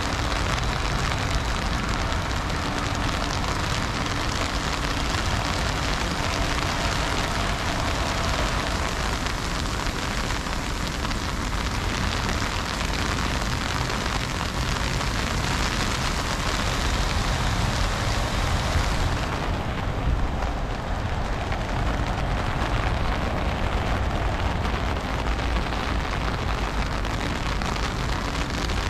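Heavy freezing rain coming down, a dense steady hiss with a low rumble underneath. About two-thirds of the way through, the highest part of the hiss drops away and the sound turns duller.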